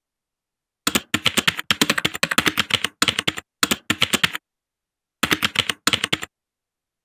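Rapid keyboard typing: quick runs of sharp keystroke clicks with brief breaks, a pause of under a second around the middle, then a last short run near the end.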